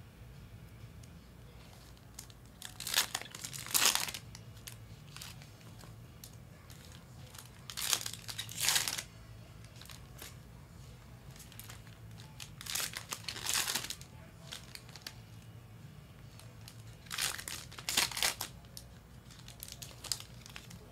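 Topps baseball card pack wrappers being torn open and crinkled by hand, in four short bouts about five seconds apart.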